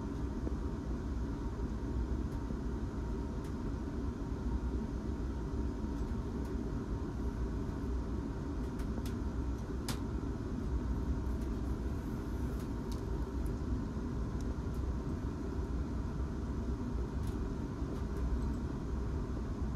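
Steady low rumble of trains heard from inside a railway carriage through its closed window, with a faint steady whine and a few light ticks.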